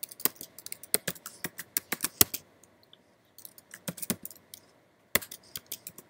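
Typing on a computer keyboard: quick runs of keystroke clicks, broken by two short pauses, as a password is typed in and then typed again to confirm it.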